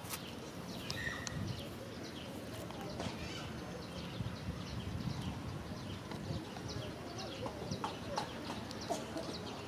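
Outdoor ambience of small birds chirping: many short, high chirps scattered throughout over a steady low rumble.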